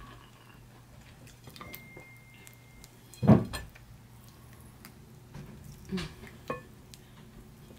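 Fingers with long acrylic nails tearing apart soft stewed beef in sauce, with small wet clicks and squelches. A loud dull thump about three seconds in, and two softer knocks near the end.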